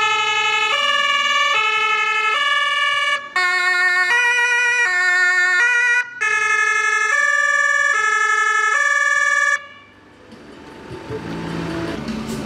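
German two-tone emergency-vehicle siren (Martinshorn) alternating between a high and a low tone about every three quarters of a second. For a few seconds in the middle it switches to a faster alternation. It cuts off shortly before the end.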